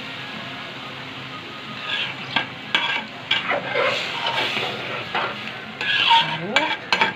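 Spoon stirring rice in chicken broth in a pot, with repeated scrapes and clinks against the pot from about two seconds in, over a steady sizzle from the liquid heating on the hot oiled rice.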